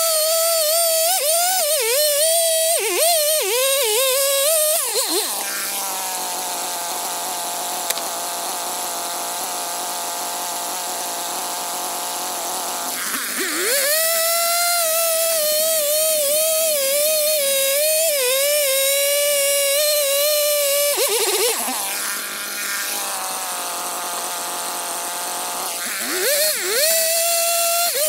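Large Stihl chainsaw cutting into a cedar blank at full throttle, its pitch wavering as the chain loads up in the wood. It drops to a steady, quieter idle about five seconds in, revs up and cuts again at about thirteen seconds, idles again at about twenty-one seconds, and goes back to cutting near the end.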